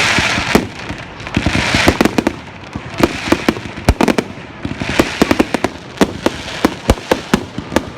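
Fireworks display going off: many sharp bangs from bursting shells, several in quick clusters, with a hiss between them.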